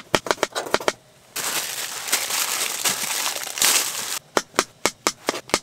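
Kitchen knife chopping potatoes on a plastic cutting board in quick strokes, about six a second. Then comes about three seconds of crinkling from a plastic bag of mushrooms, and fast chopping starts again near the end.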